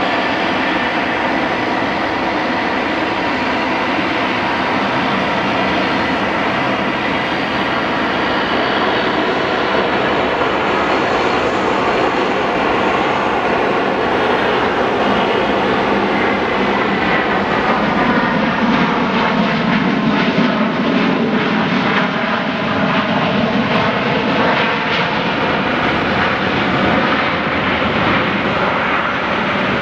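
A Boeing 737-700's CFM56-7B jet engines running steadily through the final approach, touchdown and landing rollout. A little over halfway through the noise swells and takes on a sweeping, phasing quality as the jet rolls down the runway.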